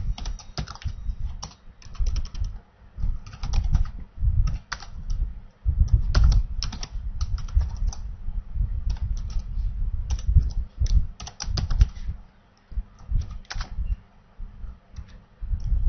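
Typing on a computer keyboard: irregular runs of keystrokes, with a short pause about two-thirds of the way through.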